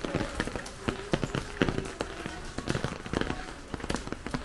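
Irregular sharp taps and cracks, several a second, with a few louder ones standing out.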